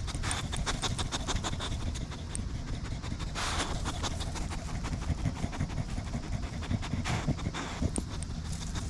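A bully-breed dog panting rapidly, about five breaths a second, with louder breathy rushes about three and a half and seven seconds in.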